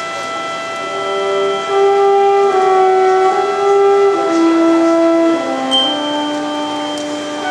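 Concert wind band playing long held chords, with brass prominent; a lower line comes in and the band swells louder about two seconds in.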